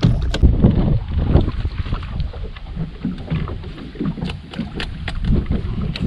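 Wind buffeting the microphone, a loud irregular low rumble, with water slapping against the boat's hull in a few short knocks.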